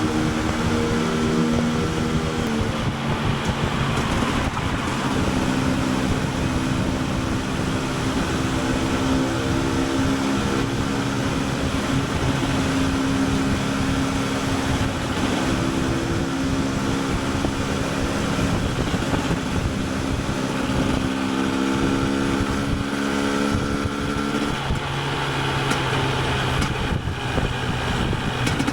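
KTM 250 EXC TPI single-cylinder two-stroke engine running under way. Its note holds fairly steady for long stretches, dips a couple of seconds in, climbs near the end, then drops.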